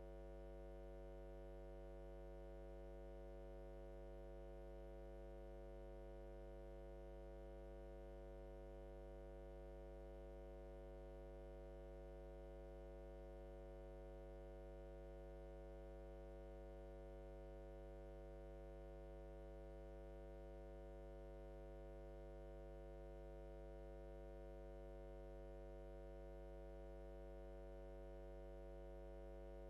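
Near silence apart from a steady electrical mains hum, a low buzz with many overtones.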